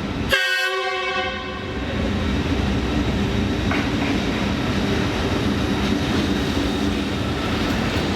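A train horn sounds about a third of a second in and fades within a couple of seconds, over the steady rumble of a passenger train running along the track.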